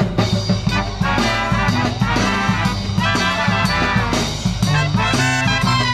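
Marching brass band playing a swing-style tune live: trumpets and trombones over a sousaphone bass line, with drum beats.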